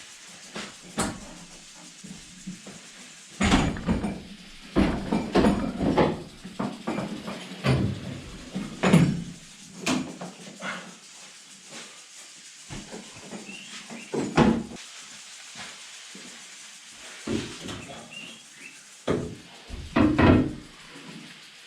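A series of irregular knocks and thumps with lighter clatter between, loudest around a third of the way in and again near the end.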